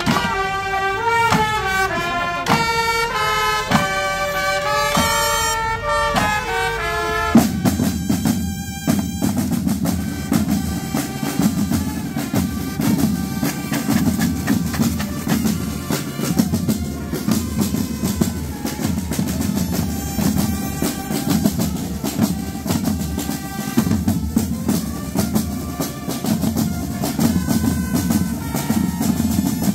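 A procession band plays a march: a melody of held notes over a beat. About seven seconds in the sound changes abruptly to mostly drumming, with many rapid strokes, while the melody carries on faintly underneath.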